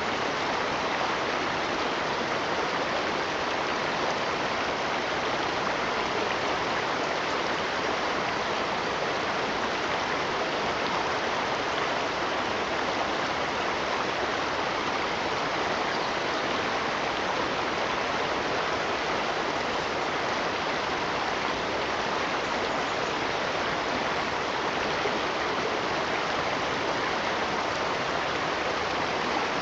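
Running water, rushing steadily and evenly without any change.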